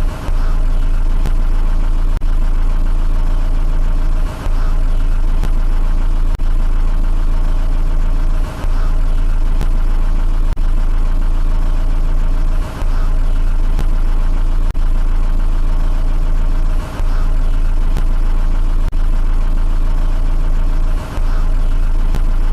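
Car engine idling steadily at low rpm with a deep, even hum. The sound dips briefly about every four seconds, and faint clicks recur where a short recording repeats.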